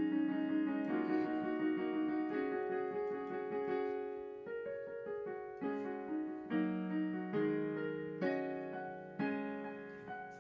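Background piano music: slow notes and chords, a new one struck about every second and fading away.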